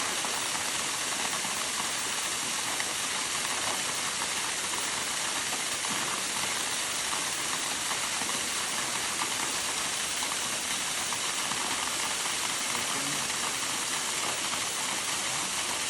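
Waterfall rushing: a steady, even wash of falling water with no change in level.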